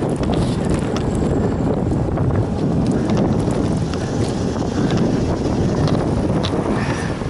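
Wind buffeting the microphone of a camera carried on a moving road bicycle, a steady rumbling rush, with a few light clicks and knocks as the camera is handled.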